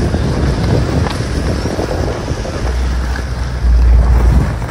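Wind buffeting the microphone: a loud, uneven low rumble that swells about three and a half seconds in.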